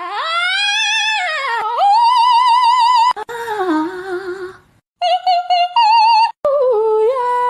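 A high, opera-style singing voice with a wide, regular vibrato, in three phrases of long held notes broken by short gaps; the first phrase swoops up from low to high. It accompanies a tabby cat opening its mouth as if singing.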